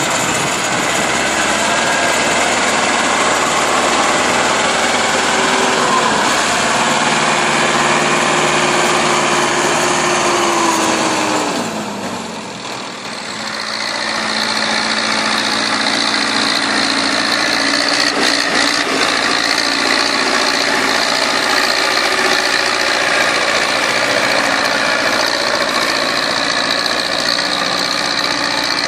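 Zetor tractor diesel engine running hard as the tractor churns through deep mud, its revs dropping about twelve seconds in. Then another Zetor tractor's diesel engine runs steadily while pulling a plough.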